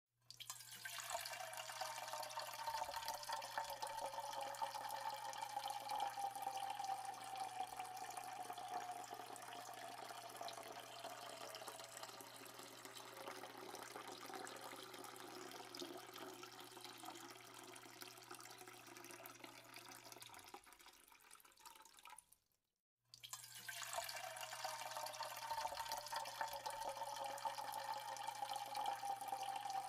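Steady running-water sound like a tap running, with a resonance that slowly sinks in pitch. It cuts out briefly about 22 seconds in, then starts over the same way.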